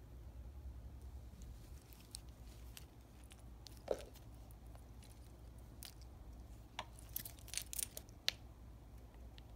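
Stainless steel watch bracelet clicking as it is handled and turned over in the hand: a single sharp click about four seconds in and a quick run of clicks near the end, over a low steady hum.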